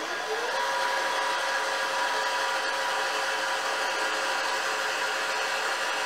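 Celestron Evolution 8 telescope mount's drive motors slewing at motor speed 9. They give a steady mechanical whine that rises in pitch in the first half second, then holds. The owner is concerned that this mount's noise level may not be normal.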